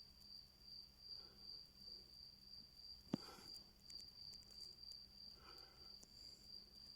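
Faint, slow snoring breaths, one every two seconds or so, under a steady high-pitched tone, with a single sharp click about three seconds in.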